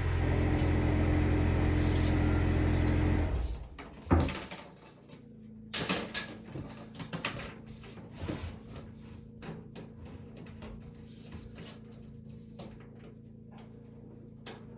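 A motor running steadily, cutting off about three and a half seconds in, followed by scattered knocks and clicks.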